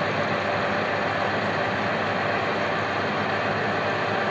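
Metal lathe running at high speed with a steady mechanical whirr while its tool cuts a ring gasket from sheet material clamped in the chuck.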